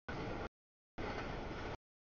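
CSX double-stack container freight train rolling past, a steady noise of wheels on rails that cuts out abruptly twice into dead silence, the audio dropping in and out.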